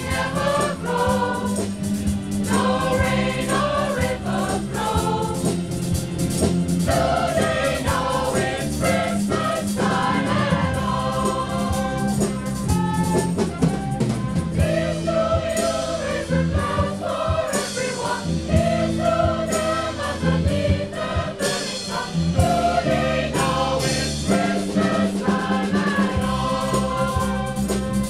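Choir singing a song with instrumental accompaniment: a steady low bass line and percussion beats under the voices.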